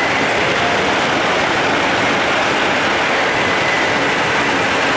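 Steady running noise inside a Mark 3 passenger coach of an HST travelling at speed: wheels on the rails and the rush of air, unbroken, with a faint thin whistle that comes and goes.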